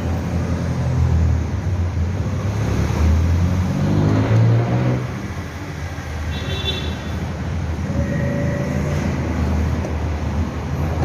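Steady low rumble of road traffic, swelling about four seconds in, with a short high tone about six and a half seconds in.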